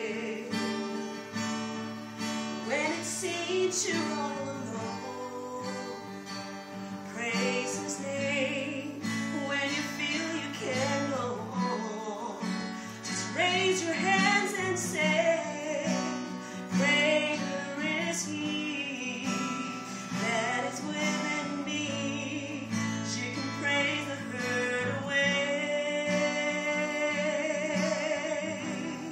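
A woman singing a slow song solo, holding long notes with vibrato, over a steady guitar accompaniment.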